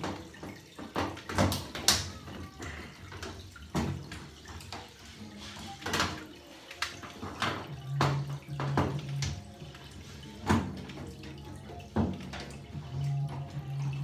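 Water draining by gravity from a washing machine's full tub into a bucket, a continuous running splash, with scattered sharp clicks and knocks from a screwdriver and the sheet-metal back panel as its screws are taken out.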